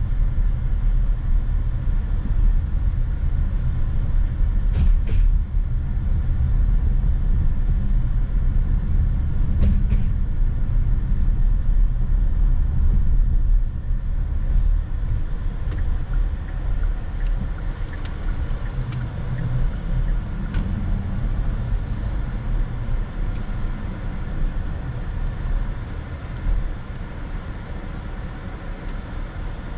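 2023 Kia Sorento hybrid on the move: a steady low rumble of road and tyre noise with a faint running hum, broken by a few light clicks. It gets quieter about halfway through and stays lower to the end.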